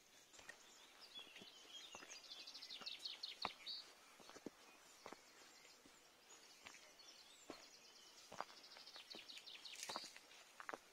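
Faint outdoor ambience: two stretches of rapid, high-pitched trilling lasting a few seconds each, with scattered soft clicks and knocks.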